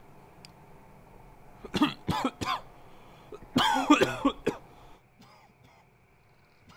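A young man coughing on cigarette smoke: three short coughs about two seconds in, then a longer hacking coughing fit around four seconds in.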